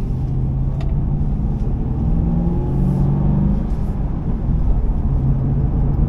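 2005 Ford Mustang GT's 4.6-litre V8 running under way, heard from inside the cabin, its low burble over road rumble. The engine note climbs over the first few seconds, then dips and settles steady again.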